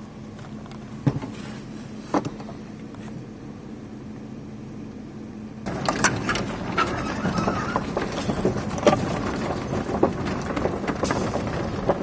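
Vehicle driving over a rough dirt track, heard from inside the cab: road and engine noise with frequent rattles and knocks. It starts abruptly about halfway through, after a quieter stretch with a faint steady hum and two knocks.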